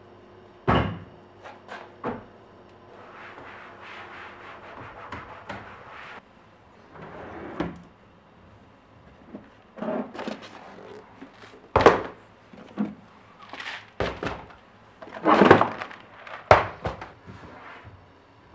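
Irregular knocks and clunks of kitchen items being handled, set down and moved about, some sharp and some heavier, with soft rubbing or scraping noises between them.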